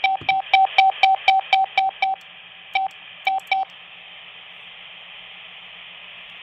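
Morse code (CW) tone from a Quansheng UV-K5 handheld radio running CW-mode firmware: a string of short, evenly spaced dits, about four a second, that breaks off about two seconds in. Three more dits follow, then the radio's steady receiver hiss takes over.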